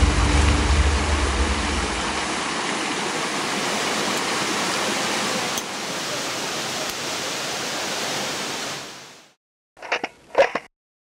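Steady rush of falling water, with a low rumble in the first two seconds, fading out about nine seconds in. Two short knocks follow close together near the end.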